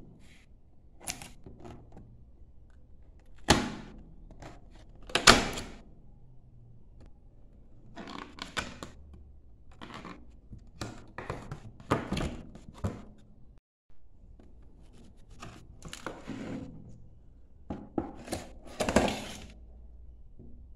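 Thin clear plastic box of a Basilur Garden Stones tea tin being opened and handled: irregular crackles and clicks of the plastic flaps, with a few sharp knocks, the loudest about three and a half and five seconds in.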